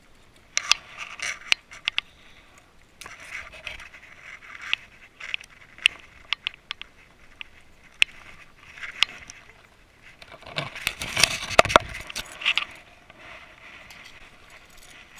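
Handling noises of fishing gear and fish on a small boat: scattered sharp clicks and brief scrapes, with a longer, louder stretch of scraping and rustling about eleven seconds in.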